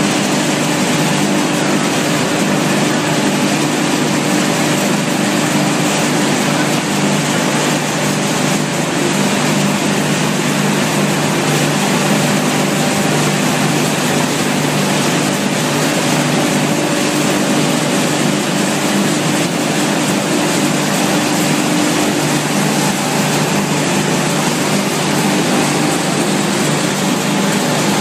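Wood pellet production line machinery running: pellet mills, conveyor and dust-collection equipment making a loud, steady din with a low hum.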